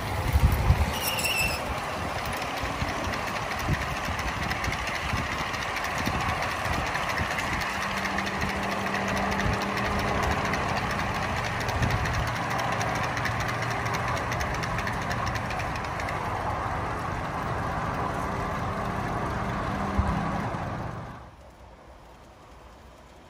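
G scale model diesel locomotive and its train of cars running on garden track, the locomotive's onboard sound effects turned off. Wheels roll and rattle over the rails and the electric drive motors hum low and steady. The sound drops sharply about 21 seconds in.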